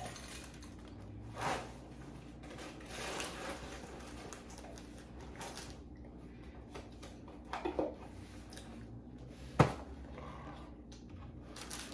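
Quiet handling noises: a few brief rustles and scuffs, then one sharp click near the end.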